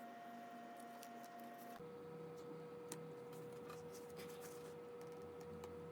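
Faint small clicks and light taps of phone-repair handling on an iPhone 7, over a steady electrical hum whose pitch drops about two seconds in.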